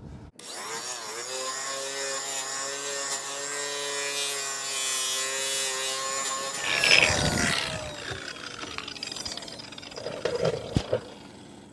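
Electric polisher buffing raw aluminum: the motor spins up and runs at a steady pitch, then a louder burst of buffing about seven seconds in, after which the pitch falls as it winds down. A sharp knock comes near the end.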